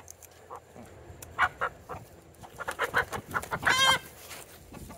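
Chickens clucking in short calls, with one louder, longer squawk toward the end.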